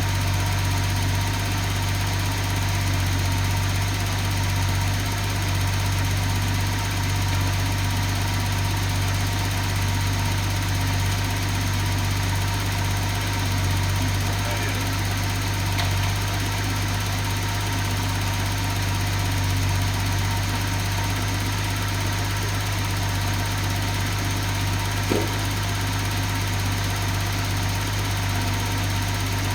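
Nissan 280ZX Turbo's L28ET straight-six running steadily at idle through its muffler, with a single short tap near the end.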